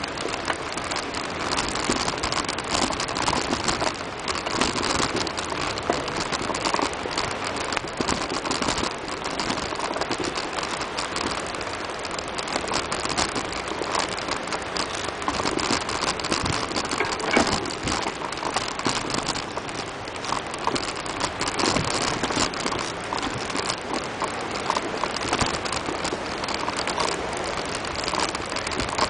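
Bicycle tyres rolling over a dirt path of dry leaves and small stones: a steady crackling, gritty rustle, with frequent small ticks and rattles.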